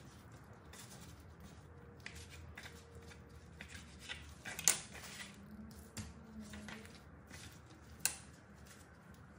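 Kitchen knife slicing raw chicken breast into cubes on a plastic cutting board, the blade tapping the board irregularly. There are two sharper knocks, one about halfway through and one near the end.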